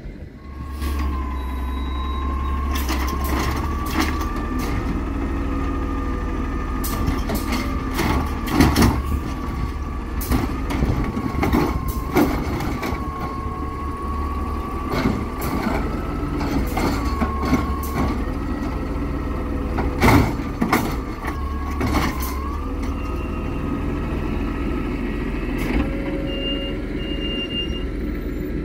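Peterbilt 320 natural-gas garbage truck with a Bridgeport Ranger automated side-loader body, running while its arm grabs, lifts and empties a wheeled recycling cart. A steady whine that wavers in pitch rides over the engine's rumble, with loud bangs as the cart is shaken out and set back down, about a third of the way in and again about two-thirds in.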